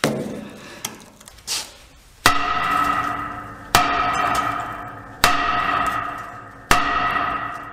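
A heavy hammer striking a truck's steel brake drum four times, about a second and a half apart, each blow leaving the drum ringing like a bell, after a few lighter knocks.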